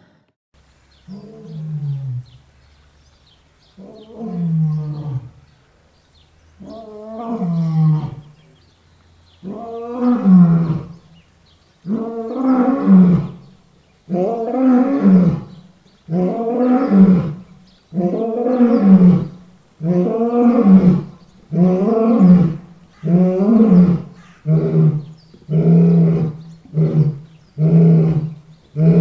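A lion roaring in a full bout. The calls start as moans about two and a half seconds apart, grow louder and closer together, and run into a string of short grunts about one a second.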